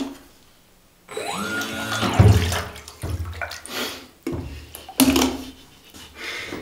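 A radio-controlled rubber duck's small electric motor whining up in pitch, then its propeller churning and splashing bathtub water in several bursts.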